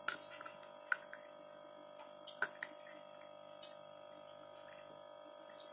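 Aquarium filter running with a steady hum, with irregular light clicks and drips of water and bubbles.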